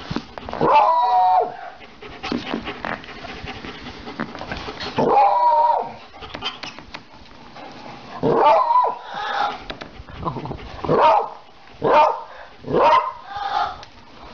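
Beagle giving drawn-out, howling barks: two spaced calls, then a quicker run of several more from about eight seconds in.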